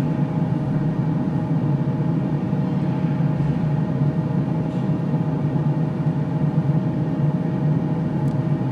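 Steady low mechanical hum with a faint constant whine above it, unchanging throughout.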